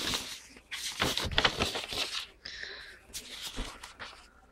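Paper bills and envelopes being handled and shuffled by hand, the sheets rustling in several short bursts.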